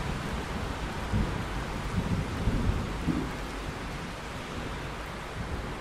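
Steady rain hissing, with thunder rumbling in several swells between about one and three seconds in, then rolling away.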